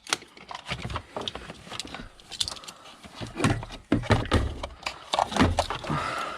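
Irregular plastic clicks, knocks and rustling as wiring connectors are handled and plugged into a body control module.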